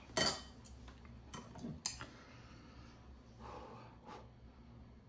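Metal chopsticks clicking against a ceramic bowl as ramen noodles are picked up: a few sharp separate clicks, after a short louder rustle near the start.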